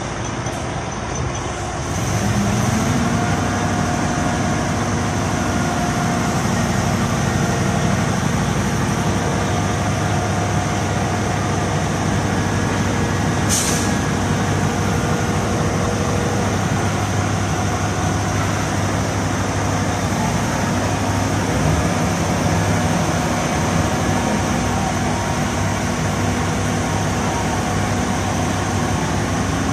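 Heavy diesel engine running steadily, revving up about two seconds in and holding there under load, with a short sharp hiss of air near the middle.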